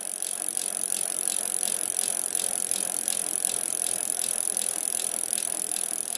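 Bicycle freewheel ticking as the rear wheel spins: a rapid, steady clicking over a high hiss.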